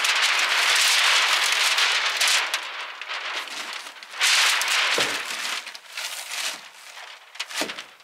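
A large sheet of Tyvek HomeWrap crinkling and rustling loudly as it is pulled and flaps against the wall. It comes in surges, strongest at the start and again about four seconds in, with a couple of dull thumps in the second half.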